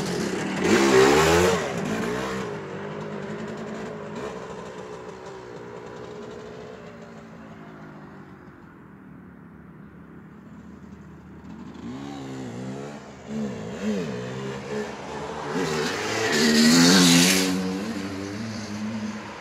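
Voskhod 3M-01 motorcycle's two-stroke single-cylinder engine revving, its pitch rising and falling. It is loud at first, fades away to a low drone, then comes back and peaks loudly near the end.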